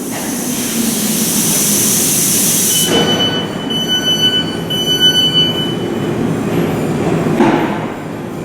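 Thameslink Class 700 electric train at the platform, with a steady low hum. A broad hiss lasts about three seconds and cuts off suddenly, then broken high-pitched tones come and go for a few seconds.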